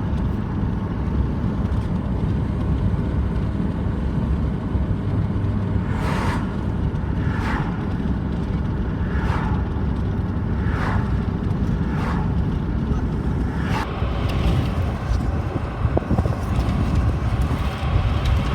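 Car driving, with a steady low road rumble heard from inside the car. In the middle, a run of brief noises comes about every second and a half.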